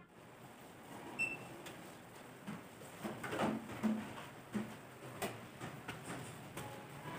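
Scattered light knocks, taps and a brief metallic clink as tools and materials are handled and set down on a work counter, unevenly spaced over the stretch.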